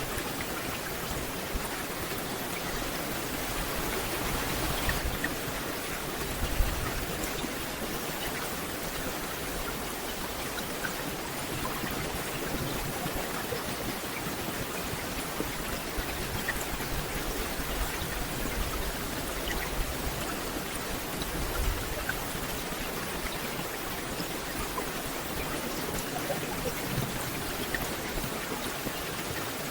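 Steady rain falling on forest leaves: an even hiss with scattered ticks of single drops.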